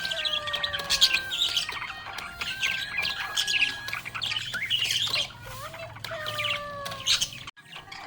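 Budgerigar chattering and chirping rapidly, a dense run of short high calls, over a simple melody of held notes; the sound drops out briefly near the end.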